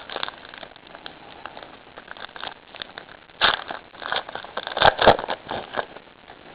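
Trading card pack wrapper crinkling and tearing as it is opened by hand, with the cards shuffled out. The crackle comes in uneven bursts, loudest about three and a half and five seconds in.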